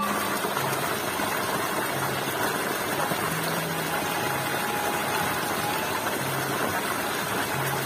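Water gushing steadily from a pipe outlet and splashing into a flooded rice paddy.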